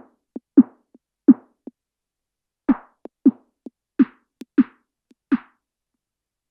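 Synthesized snare drum hits played in a quick pattern, each a short pitched thump with a burst of noise on top. They pause after about two seconds, start again a second later with a brighter, noisier top, and stop about two seconds before the end.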